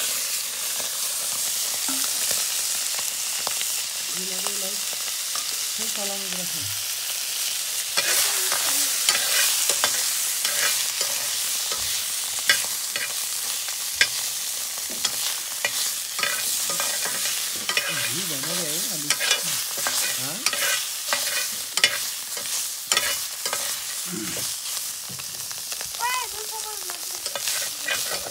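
Toad meat sizzling as it fries in a hot pan, with a metal spatula scraping and clacking against the pan as it is stirred again and again.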